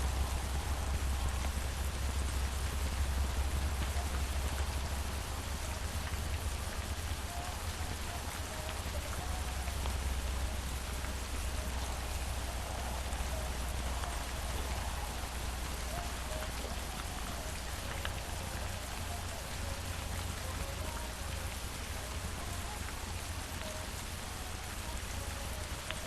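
Steady rain falling, an even hiss of drops with a constant low rumble underneath.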